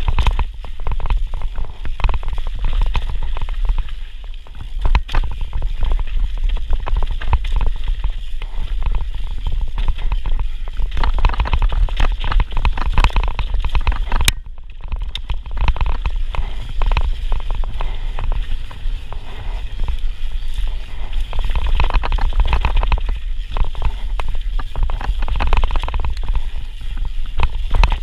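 Santa Cruz Megatower enduro mountain bike ridden fast down a rough dirt trail, heard from a bike-mounted action camera: wind buffets the microphone in a constant heavy rumble, over which the bike rattles and clatters with the tyres running over dirt and leaves.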